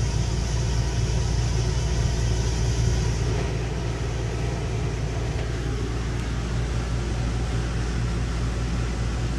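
A steady low machine hum, like an engine or motor running, with a faint high hiss for the first three seconds or so.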